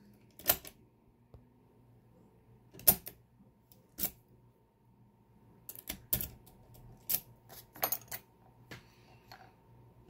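Sharp, irregular metallic clicks and clacks of a steel Mul-T-Lock padlock being handled in a small bench vise and of lockpicking tools going into its keyway.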